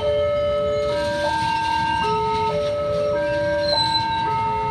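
Railway level-crossing warning alarm: electronic tones stepping between pitches in a repeating sequence, over the low rumble of a passing container freight train.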